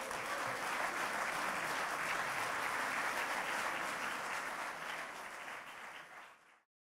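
Large audience applauding, a dense steady clapping that eases a little and then cuts off suddenly near the end.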